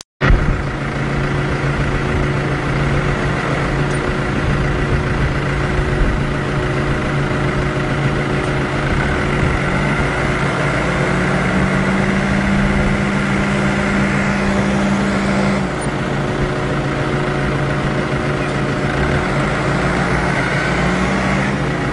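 New Holland TD85D tractor's diesel engine running steadily as the 4x4 tractor drives over rough, uneven ground. A higher steady note joins the engine sound for a few seconds around the middle and again near the end.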